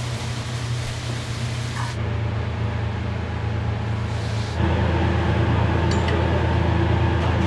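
Steady low hum of restaurant kitchen machinery under a hiss; the hiss stops about two seconds in, and the hum grows louder about four and a half seconds in.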